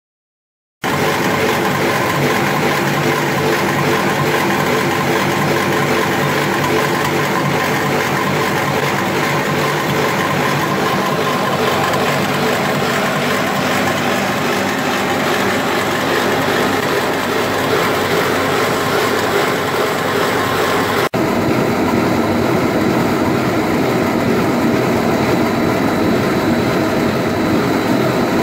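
Pillow-shaped core-filled snack cutting machine running on a production line: a loud, steady machine drone with several steady humming tones, starting abruptly about a second in, with a brief dropout about 21 seconds in.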